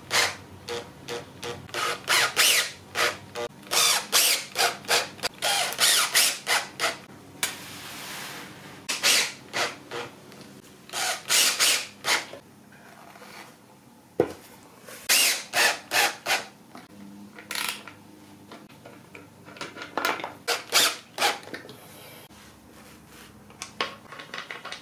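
Cordless drill-driver run in many short bursts, tightening hex-head bolts through aluminium rails into plywood while a wrench holds the nuts.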